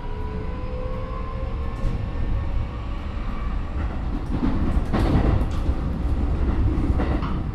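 Inside a Keikyu 1000 series electric train with Mitsubishi IGBT inverter drive: the traction motor whine climbs slightly and fades in the first two seconds, then the car rumbles along with the wheels clacking over rail joints, busiest about four to five seconds in and again near the end.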